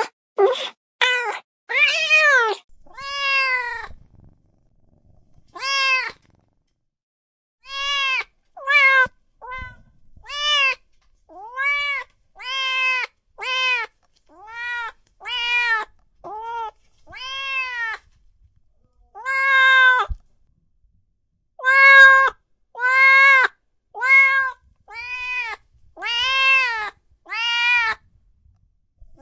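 Domestic cat meowing over and over, about twenty separate meows, each rising and then falling in pitch. A quick run of short meows opens the series; after a pause of about three seconds the meows come roughly one a second.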